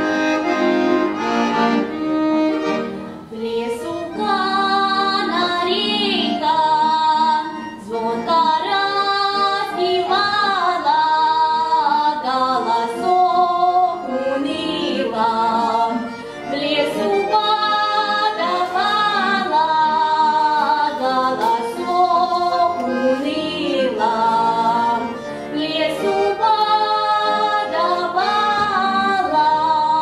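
A young girl singing a Russian folk song, accompanied on a button accordion (bayan). The accordion plays alone for the first few seconds before her voice comes in, then the two carry on together in phrases.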